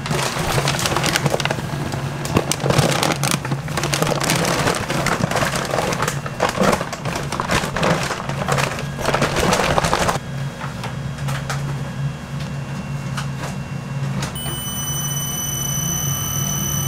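Large commercial stand mixer running with a steady low hum, its beater churning eggs and flour in a steel bowl with a gritty, crackling rush. About ten seconds in the crackling drops away, and near the end a steady high whine joins the hum.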